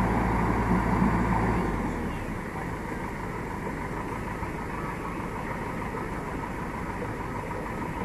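JCB backhoe loader's diesel engine running with a steady drone that falls away about two seconds in, leaving a quieter, uneven rumble.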